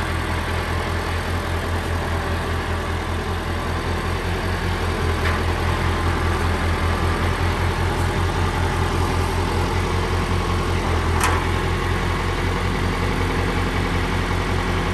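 Farm tractor engine running steadily at low speed with an even, rapid pulse, the front loader raised. A single sharp click comes about eleven seconds in.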